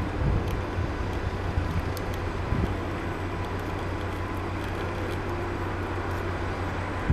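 Construction machinery running: a steady low diesel engine drone, with a few faint clicks over it.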